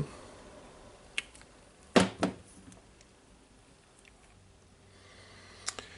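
Small greased parts of a rotary hammer's hammer mechanism being handled, with a few sharp clicks: a light one about a second in and two louder ones close together about two seconds in.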